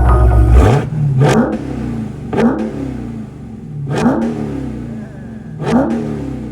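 Supercharged 6.2-litre Hemi V8 of a Dodge Challenger SRT Hellcat Super Stock blipped four times through its newly fitted aftermarket valved exhaust, each rev rising sharply and then falling back toward idle.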